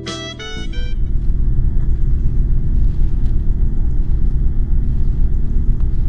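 Wind buffeting the camera microphone: a loud, unsteady low rumble that starts about half a second in, as saxophone music stops.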